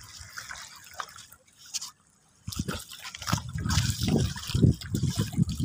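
Shallow sea water lapping and trickling among rocks at the shoreline. It is faint at first, cuts out briefly about two seconds in, then comes back louder and more uneven.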